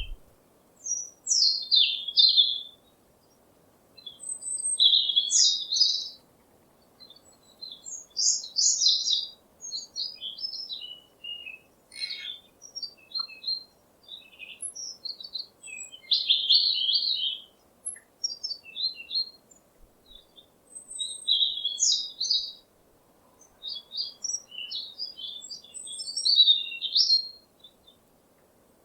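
Songbirds chirping and singing in quick high phrases of one to three seconds, with short pauses between, over a faint steady background hiss.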